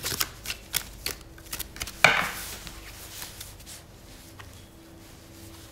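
A deck of tarot cards being shuffled by hand. Quick clicks and taps of the cards come first. A louder snap about two seconds in is followed by a brief rustle, and then the clicks grow fewer and fainter.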